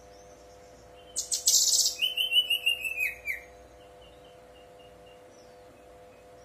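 Brown-chested jungle flycatcher singing one short burst about a second in: a scratchy opening followed by a quick run of clear whistled notes that slide down, then a few faint short notes. A low steady hum runs underneath.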